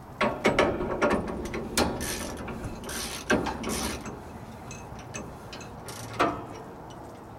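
Standard socket ratchet clicking in several quick bursts as it turns a dock leveler's pull rod adjustment nut through an extra-long 12-inch deep socket.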